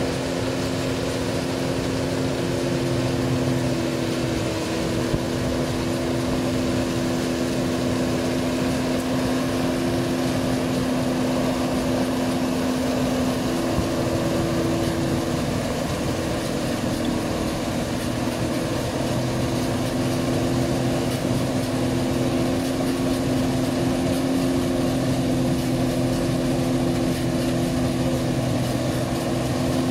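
New Holland 8070 combine harvester running steadily while it cuts rice, its engine and threshing machinery giving a constant hum with two steady tones.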